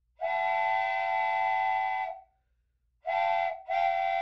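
Miniature zoo train's whistle sounding a chord of steady tones: one long blast of about two seconds, a short blast about a second later, then another long blast starting just before the end.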